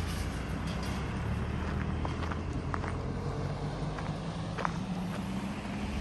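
Road traffic engines running at low speed, with a small flatbed truck driving past: a steady low drone that rises slightly a few seconds in. A few short, faint high sounds come through over it.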